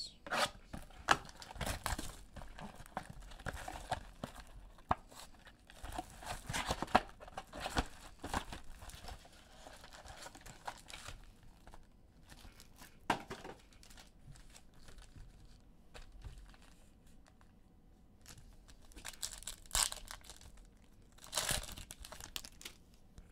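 Plastic shrink-wrap and cardboard of a sealed trading-card box being torn and opened, crinkling and tearing, busiest in the first half. Near the end, a foil card pack is torn open with a short, sharp rip.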